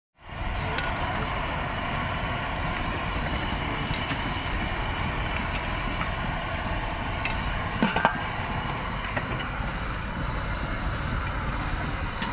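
Steady outdoor street-market background noise with a low rumble, like passing traffic, and a brief sharp clatter about eight seconds in.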